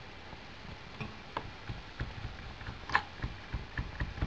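Irregular small clicks and taps as small metal and plastic parts are handled: a miniature light bulb is screwed into its holder on a toy steam engine's generator.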